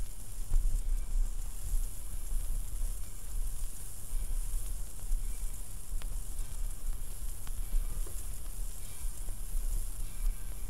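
Vinyl record surface noise: a steady hiss with scattered crackle and a couple of sharp clicks, over a low rumble.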